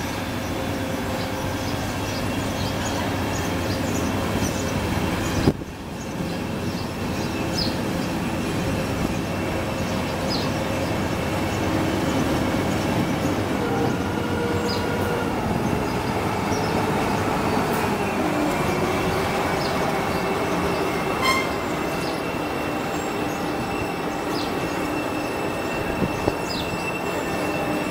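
Diesel-hauled freight train rolling past with its brakes applied, the brake shoes squealing in several steady tones over the rumble of wheels on rail. The brakes are dragging so hard that they are burning.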